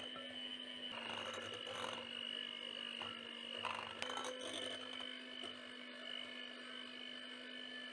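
Electric hand mixer running steadily, its beaters whisking eggs and sugar in a glass bowl: a steady motor hum and whine, its pitch shifting slightly about a second in and again about four seconds in.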